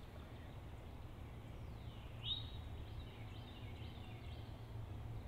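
Faint outdoor ambience: a steady low background rumble with a few small birds chirping. One short high chirp comes about two seconds in, followed by a few fainter ones.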